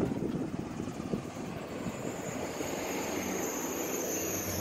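Distant vehicle noise: a steady rumble with a thin high whine that grows louder from about halfway through.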